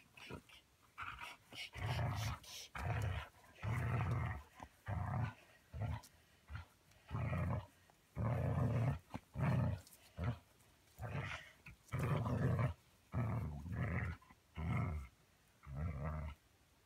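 Dog growling in repeated short bursts, about one a second, while tugging on a toy: play growling during a game of tug.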